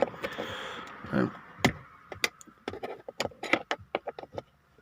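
A flathead screwdriver working under the plastic console trim around a Holden VE Commodore's gear shifter: scraping in the first second, then a run of sharp plastic clicks and taps as the trim's clips are worked loose.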